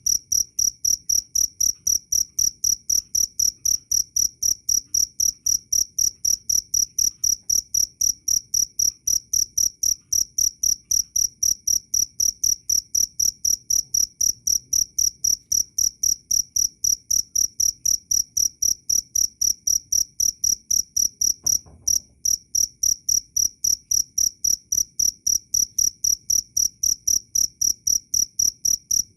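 A cricket chirping loudly in a steady, even rhythm of about three high-pitched chirps a second. The rhythm breaks off briefly about twenty seconds in.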